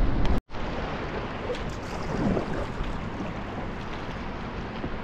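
Steady rush of river water, with wind rumbling on the microphone; the sound cuts out for an instant about half a second in.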